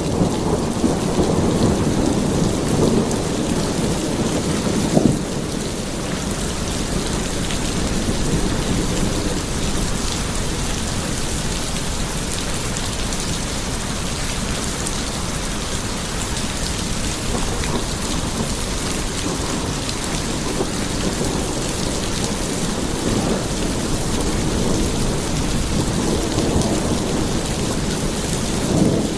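Steady rain with thunder: a low rolling rumble over the first five seconds that ends in a sharp crack about five seconds in, then an even hiss of rain.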